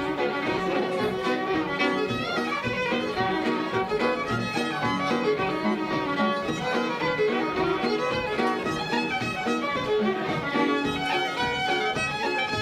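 Irish traditional reels played on fiddles, a quick unbroken run of bowed notes.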